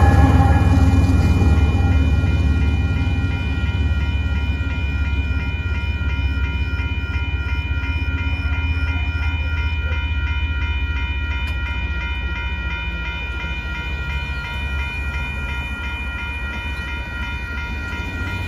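Railroad crossing bell ringing steadily at a grade crossing, over the low rumble of a Union Pacific coal train rolling by. The rumble fades away over the first few seconds as the train clears the crossing, leaving the bell.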